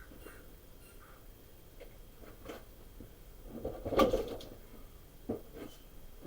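A few scattered knocks and handling sounds against a quiet background, the loudest a sharp knock about four seconds in and another about a second later.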